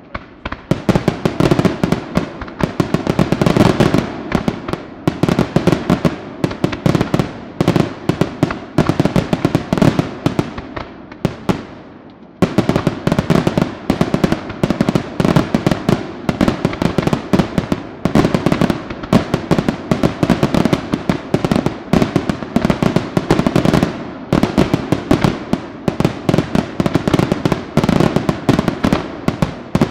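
Aerial fireworks display by La Tirrena Fireworks: a rapid, continuous barrage of shell bursts and crackling reports. It eases off briefly about twelve seconds in, then resumes just as densely.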